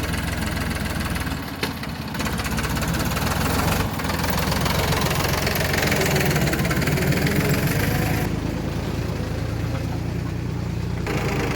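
Diesel engine of heavy farm and earthmoving machinery running, rising in level about four seconds in and easing back about eight seconds in.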